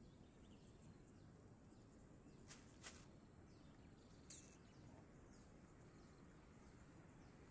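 Steady high-pitched drone of insects such as crickets or cicadas, broken by three short sharp sounds about two and a half, three and four and a quarter seconds in, the last one the loudest.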